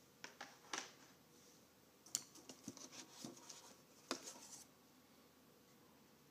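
Faint clicks, taps and rustles of hands handling accessories and packaging in a cardboard box. The sounds come as single sharp clicks and short crackly clusters, the last cluster about four seconds in.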